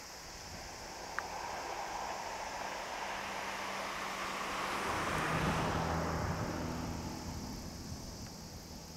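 A motor vehicle passing by. The sound swells to a peak a little past halfway and then fades, with a low engine hum that drops in pitch as it goes by.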